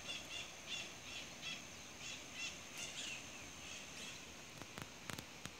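Faint bird calls: a run of short high notes repeated about three times a second, fading after about three seconds. A few soft clicks near the end.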